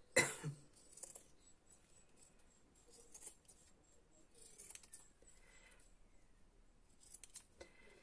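Large tailor's shears cutting through fabric: quiet, intermittent snips with pauses between the cuts, and a sharper click just after the start.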